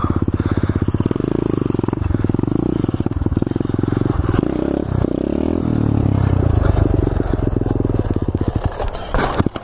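A 2015 SSR 125cc pit bike's single-cylinder four-stroke engine is running under throttle while being ridden. The pitch drops and changes about four to six seconds in, and the engine is at its loudest in the second half as the front wheel comes up in a wheelie. It falls away just before the end.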